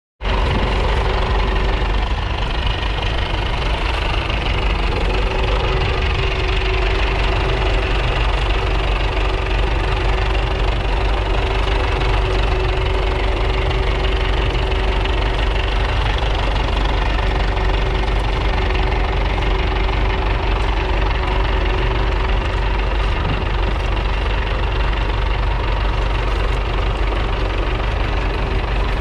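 1938 Fordson Model N's 4.4-litre four-cylinder petrol/TVO engine running steadily as the tractor pulls a two-furrow trailed plough, with a thin steady tone joining in about five seconds in.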